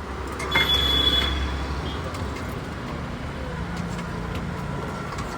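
Road traffic: a vehicle passes with a low engine rumble, loudest from about half a second to two seconds in, with a brief high tone over it, then steady street noise.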